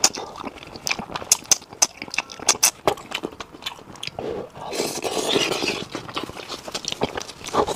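Close-miked eating of braised fish: wet chewing and many sharp lip-smacking clicks, with a longer breathy slurp about halfway through.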